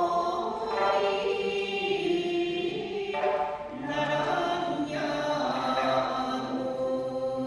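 A group of voices singing an Okinawan folk song in unison with sanshin accompaniment. The notes are long and held, with a short break about three and a half seconds in before the next phrase begins.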